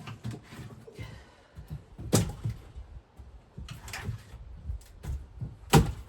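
Splitting maul striking firewood rounds: two sharp, loud blows about three and a half seconds apart, with lighter knocks of wood pieces between them.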